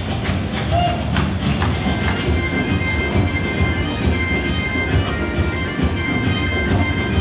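Bagpipe music playing, with long steady held notes.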